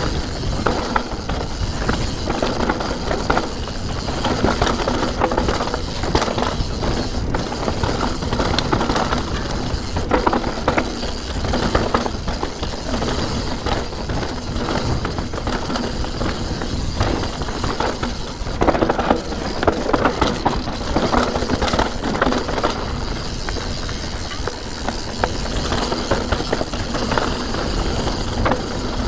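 Riding noise of a Santa Cruz Nomad 4 mountain bike descending a dry dirt trail: a steady rush of tyres rolling over dirt and leaves, broken by many short knocks and rattles from the chain and bike over bumps and stones, with wind on the helmet camera's microphone.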